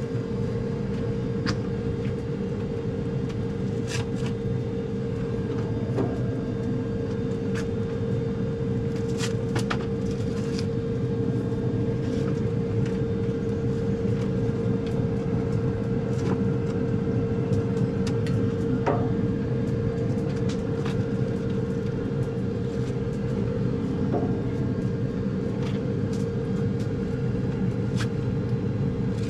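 A steady low rumble with a constant hum runs throughout. Sharp crackles and pops, from the wood fire and the burgers on the hot grill, come every second or two.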